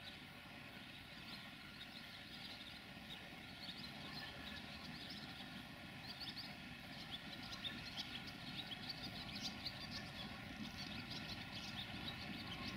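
CFR LDH class 80 diesel-hydraulic locomotive approaching slowly, its diesel engine a steady hum with a low rumble that grows louder as it nears. Many short high squeaks or chirps sound over it, coming thicker in the second half.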